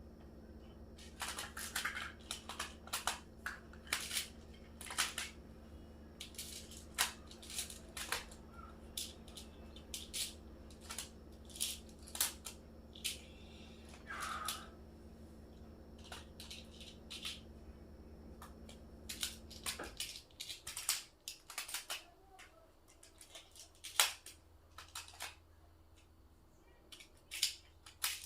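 Plastic magnetic building tiles clicking and clacking as they are handled and snapped together: many sharp, irregular clicks. A low steady hum underneath stops suddenly about two-thirds of the way through.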